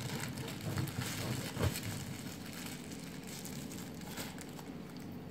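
Small kitchen scissors snipping, with light crackly handling and crinkling noises and a couple of sharper snaps about a second in and just before two seconds.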